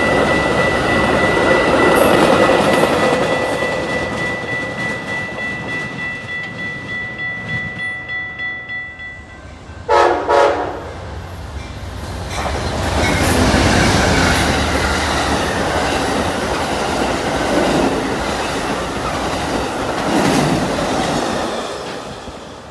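A Metra commuter train's bi-level cars roll past with a steady high squeal. About ten seconds in, a train horn gives two short blasts, and an Amtrak passenger train then passes with rail clatter that swells and fades.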